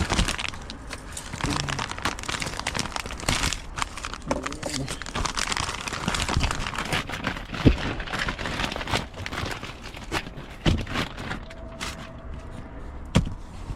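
Packaging crinkling and rustling as it is handled and opened by hand, with scattered sharp clicks and knocks; the sound cuts off abruptly at the end.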